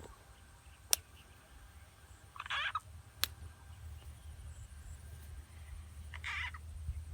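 Short frog calls repeating about every four seconds, with two sharp clicks between them.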